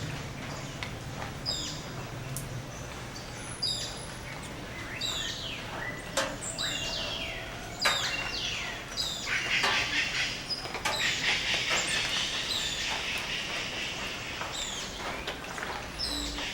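Dawn chorus of many birds in tropical rainforest: overlapping chirps and whistled calls, many sliding down in pitch. In the middle, a dense chattering mass of calls swells for several seconds.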